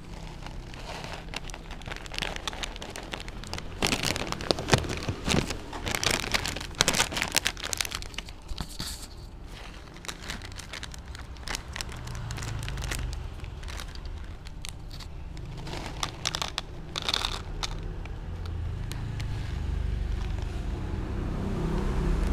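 Plastic foil pouch of Whiskas kitten food crinkling and crackling as fingers handle and pinch it, in irregular bursts that are thickest about four to eight seconds in and again around seventeen seconds. A low steady rumble runs underneath.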